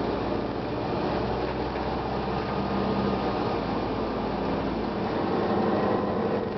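Detroit Diesel Series 50 inline-four diesel of a 1999 Gillig Phantom transit bus running, its pitch shifting a little partway through as the low rumble eases off.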